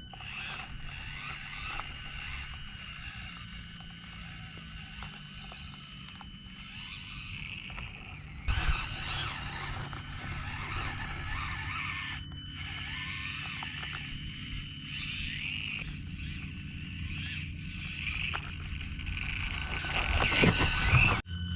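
Axial SCX24 Deadbolt micro RC crawler driving over rocks: the small electric motor and gears whine steadily while the tyres and chassis scrape on stone. There are loud knocks about eight seconds in and again near the end.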